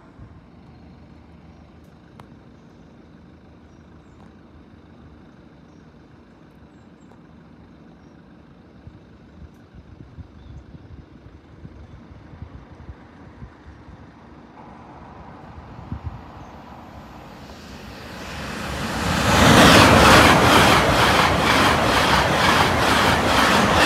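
LNER Class 801 Azuma electric train approaching and passing at speed: a faint rumble that grows over several seconds into a loud rush of wheels and air, with a rapid regular clatter of the wheels over the track.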